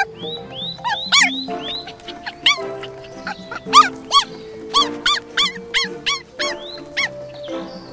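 A basket of young puppies whining and yelping: a rapid string of short, high cries, each rising and falling in pitch, over steady background music.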